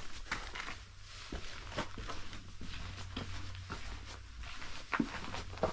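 Footsteps walking slowly inside a small, enclosed abandoned wartime building, crunching and scuffing about every half second.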